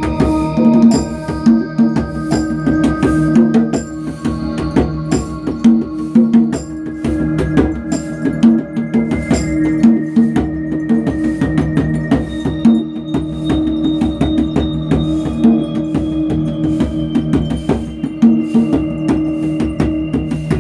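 Djembe played with bare hands in a busy steady rhythm over an ambient chord progression on a Kurzweil keyboard, its chords held and changing every couple of seconds.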